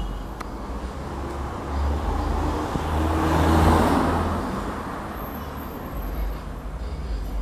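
A vehicle passing by: its tyre and engine noise swells, peaks about three and a half seconds in and fades away, over a steady low rumble.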